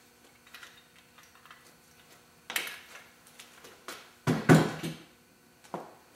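A few short metallic clanks and clinks of parts being handled and set down, the loudest a clatter about four and a half seconds in.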